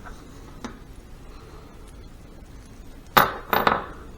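Steel bolts clinking as they are handled: a faint click near the start, then two sharp metallic clinks with a short ring about three seconds in.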